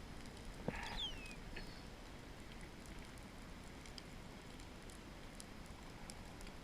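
Faint underwater ambience of scattered clicks and crackles over a low rumble. A sharper click comes less than a second in, followed by a short whistle falling in pitch.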